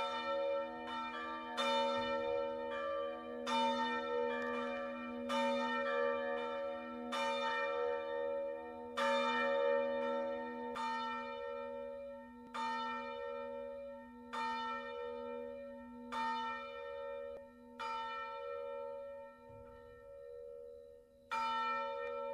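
Bells struck one after another, each stroke ringing on with long, steady tones. The strokes come quickly in the first half, then slow to about one every two seconds, with a longer pause before a last stroke near the end.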